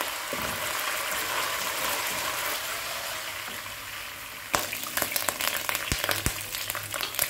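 Ginger-garlic paste, chopped green chillies and cumin seeds frying in oil in a kadai, a steady sizzle as they are stirred with a spatula. About four and a half seconds in it turns to a crackling with many sharp pops.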